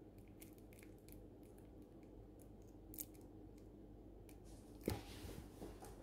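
Faint crinkling and light clicks of a small plastic mustard sachet being squeezed and handled, with one sharp click about three seconds in and a louder knock followed by a brief rustle near the end.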